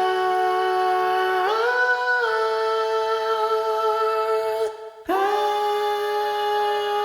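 Music: long held chords that step to new pitches every second or two, with a short break about five seconds in.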